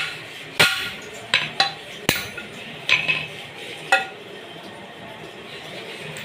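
Metal tools and parts clanking against each other, about eight sharp knocks with short ringing in the first four seconds, then only a low steady background.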